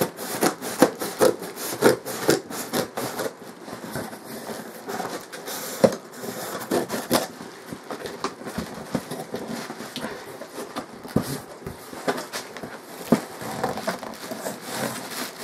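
Scissors cutting and scraping through the tape and cardboard of a long box, with irregular snips and clicks, then cardboard flaps being pulled open and plastic packing rustling.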